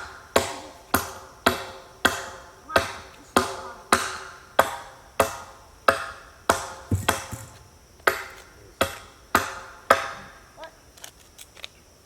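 A hammer driving a nail into the ground to hold down a sled track. The strikes come steadily at about two a second, each with a short metallic ring, and turn fainter and more uneven near the end.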